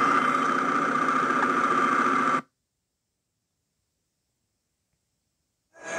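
Steady road and engine noise recorded by a motorcycle-mounted camera in traffic. It cuts off abruptly to dead silence about two and a half seconds in, and a new noisy sound fades in near the end.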